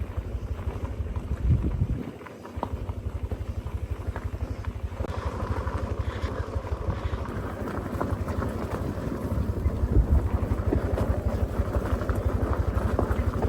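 An engine running with a steady, rapidly pulsing low throb, which dips briefly about two seconds in.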